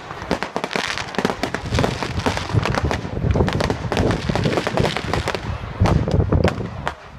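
Fireworks display going off in quick succession: a dense stream of crackling and sharp pops, with a low rumble underneath.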